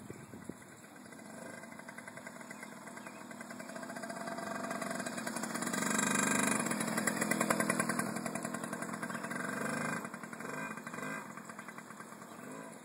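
Small youth dirt bike's engine running as it rides past: it grows louder, is loudest six to eight seconds in as it passes close by, then fades away.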